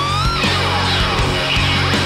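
Background rock music with a guitar-led melody; the lead line slides upward in pitch and tops out about half a second in.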